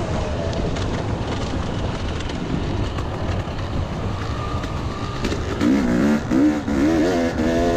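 Yamaha YZ250 two-stroke motocross engine under way. At first its note is buried in a steady rush of wind noise; from about five seconds in the engine comes through clearly and gets louder, revving up and down several times in quick succession.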